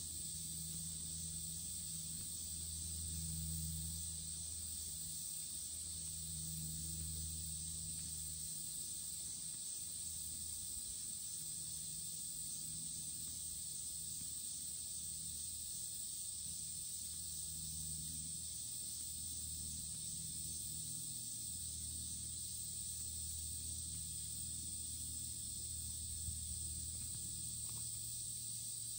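Steady, high-pitched chorus of insects, with a low hum underneath that comes and goes.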